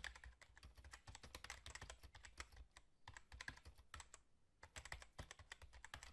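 Keyboard typing sound effect: quiet, rapid key clicks that go with text being typed onto the screen. The clicks pause briefly about three seconds in and again just past four seconds.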